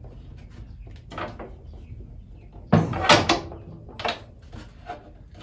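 Short clunks and knocks of hands working a popped-out part on a DeWalt DW734 thickness planer, trying to press it back into place; the loudest knocks come about three seconds in, with another about a second later.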